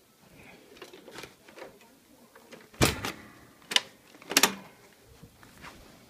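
Clunks and knocks from a Hoover Convertible upright vacuum being handled and tipped over onto its back: a few light clicks, then three sharp knocks a little under a second apart, starting about three seconds in.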